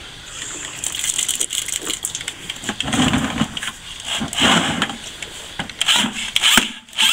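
Makita half-inch drill with a mixing paddle churning stiff, fairly dry mortar in a plastic bucket, run in uneven spurts, with the paddle rattling and scraping through the mix.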